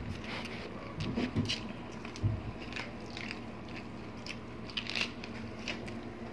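Close-up eating sounds: people chewing and crunching fresh lettuce leaves and cucumber slices, with wet mouth noises and scattered crisp crackles. Two dull thumps come about one and two seconds in.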